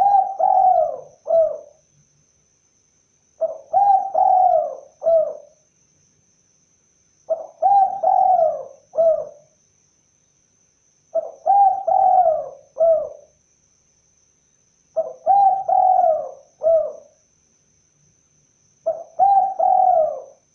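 Spotted dove (tekukur) cooing: a three-part phrase of a short note, a longer drawn-out coo and a short closing note, repeated about every four seconds, six times.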